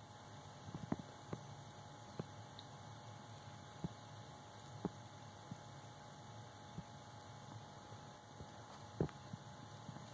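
Faint, steady low hum of room tone, with a few soft, scattered clicks, one slightly stronger about nine seconds in.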